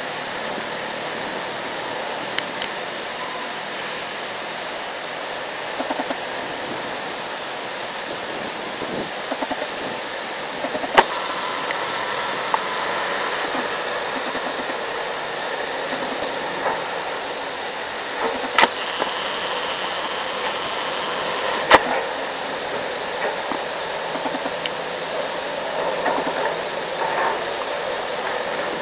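JCB JS205SC excavator working at a distance: a steady diesel engine and hydraulic drone, broken by three sharp knocks spread through it.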